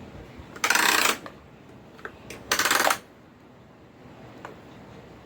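Two short, loud, rattling bursts from a ride-on toy excavator, each about half a second long and nearly two seconds apart.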